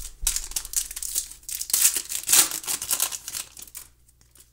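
Foil wrapper of a Panini Contenders football card pack crinkling as it is torn open and the cards are pulled out. The crackling stops about four seconds in.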